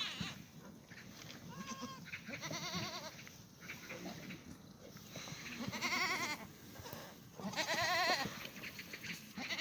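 Black goats bleating: several quavering calls, each about a second long and a couple of seconds apart, the loudest near the end.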